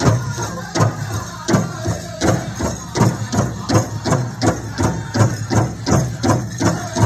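Powwow big drum struck by a drum group in a steady, even beat of a little under three strokes a second, with the singers' high voices rising over it at times: a grass dance song.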